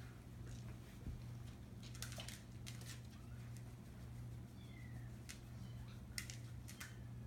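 Faint, high-pitched kitten mews, two short falling ones about five seconds in, with scattered light clicks, over a steady low hum.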